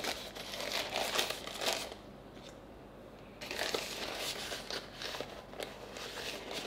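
Plastic bag inside a flour jar crinkling and rustling as it is handled, in two spells with a lull of about a second and a half between them.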